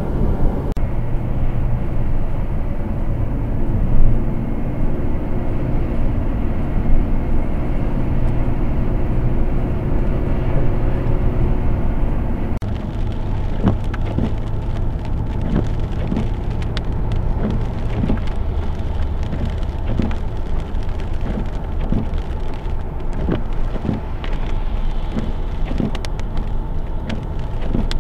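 Car cabin noise from a moving car: a steady low engine and tyre hum, which about twelve seconds in changes to wet-road driving noise with raindrops ticking on the windshield.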